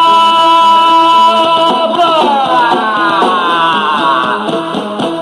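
Music: one long held note over a repeating low pulse; about two seconds in, the note begins a slow downward slide in pitch that runs for about three seconds.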